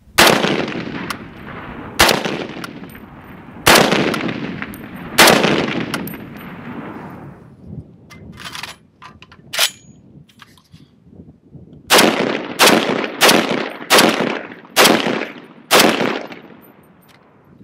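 Left-handed HK G3 rifle in .308 firing: four shots about two seconds apart, each trailing off in a long echo. Then the clicks of a magazine change, followed by six quicker shots.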